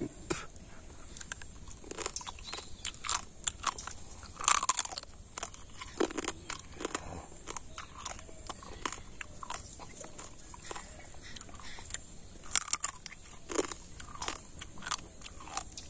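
A person crunching and chewing raw crab close to the microphone, the shell cracking between the teeth and as the fingers pull it apart, in irregular crisp snaps with a few louder cracks.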